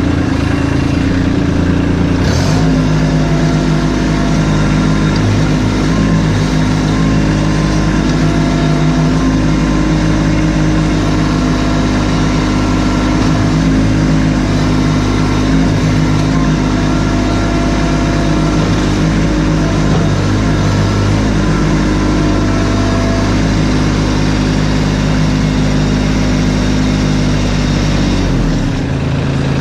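Kubota LX2610 compact tractor's diesel engine running. It steps up to a higher, steady speed about two seconds in and drops back near the end, as the freshly installed front loader's hydraulics are cycled to check them.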